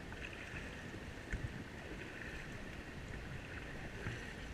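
River water splashing and rushing around a raft as the crew paddles forward, with a couple of short knocks, likely paddles striking the raft.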